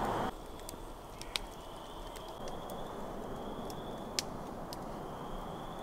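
Campfire crackling, with a few scattered sharp pops over a faint steady high tone.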